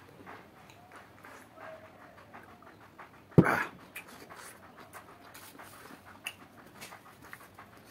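A man breathing hard through his mouth, panting between mouthfuls, with small mouth clicks. A single sharp, loud exhale comes a little over three seconds in.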